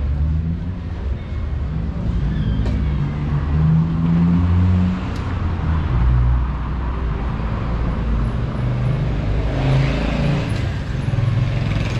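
City street traffic: car and bus engines running close by as a steady low rumble, with a brief swell of hiss about ten seconds in.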